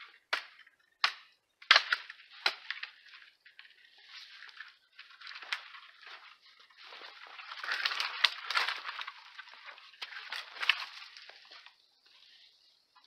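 Hatchet chopping into a thin sapling: four sharp chops roughly a second apart, then a longer stretch of crunching and crackling snow and brush.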